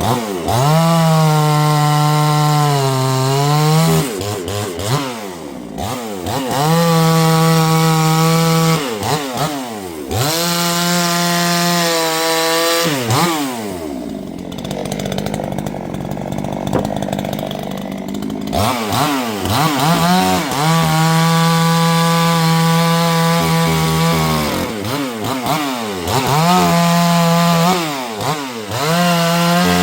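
Chainsaw engine revving up to full throttle again and again, about six times, each held for a few seconds before dropping back toward idle. The pitch sags a little while it is held, as when the chain is cutting into wood.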